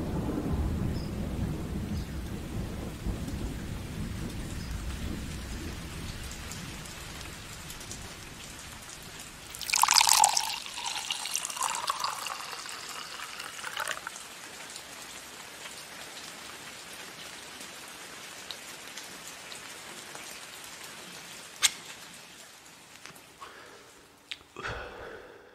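Thunderstorm sound effect: a low rumble of thunder dies away over the first several seconds, leaving steady rain, with a brief louder, brighter burst about ten seconds in. The rain fades near the end and cuts off.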